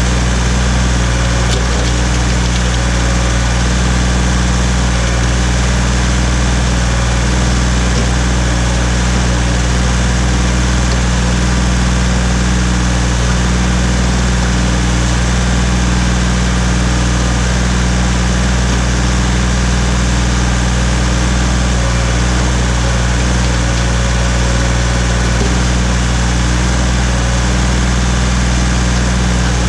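Ford 1710 tractor's three-cylinder diesel engine running at a steady speed while the three-point backhoe is tried out.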